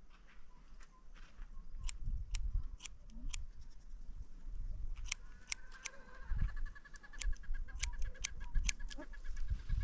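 Scissors snipping hair, a run of quick, irregular crisp clicks as the hair is cut over a comb. From about halfway through, a high trill runs faintly underneath.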